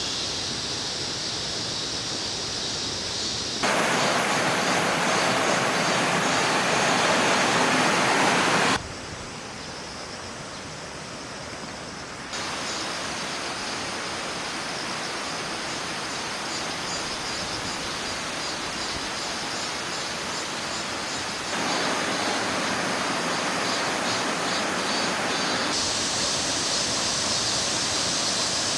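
Steady, even rushing outdoor noise with no distinct events, stepping abruptly louder or quieter and changing tone about five times; the loudest stretch comes a few seconds in.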